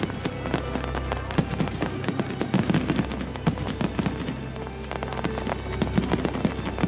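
Aerial fireworks display: a dense, irregular barrage of shell bursts, sharp bangs mixed with crackling, going on without a break.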